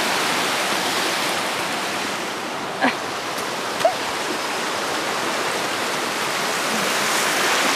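Fast-flowing stream water rushing and splashing between the stone piers of a small sluice, a steady, even rushing noise.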